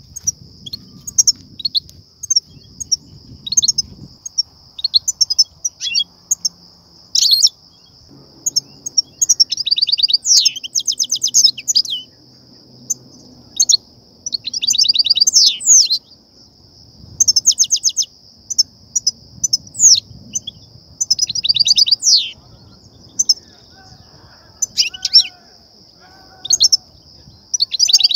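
European goldfinch twittering: sharp high chirps broken by several fast, buzzy trills, the excited 'batbata' call that keepers use to stir goldfinches into song and to lure wild ones. A steady high hiss runs underneath.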